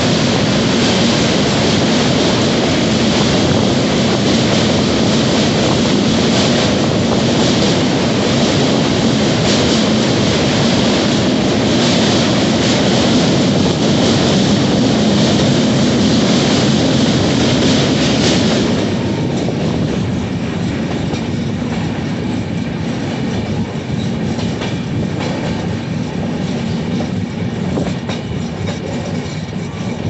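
Passenger train running at speed, heard from aboard: a loud, steady rumble and rattle of wheels on rails while crossing a steel truss bridge. A little past halfway it becomes clearly quieter and less bright as the coach runs off the bridge onto ballasted track.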